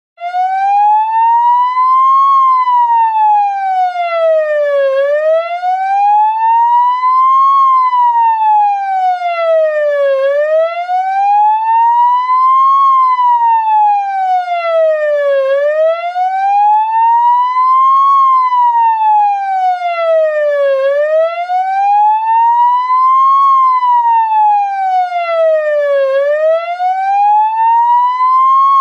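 Ambulance siren in a slow wail: a single tone that glides smoothly up for about two and a half seconds, then back down, over and over. It starts abruptly and stays loud and clean, with no engine or traffic noise.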